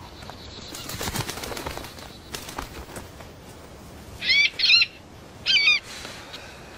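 Hawk's wings flapping as it lands, then three short, wavering, high-pitched cries from the hawk, two close together about four seconds in and a third a second later; the cries are the loudest sound.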